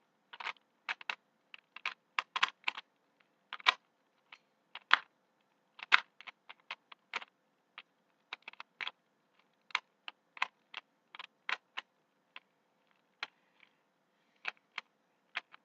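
A Rubik's Cube being turned rapidly during a timed solve: irregular plastic clicks as the layers snap round, coming in quick clusters with short pauses between them.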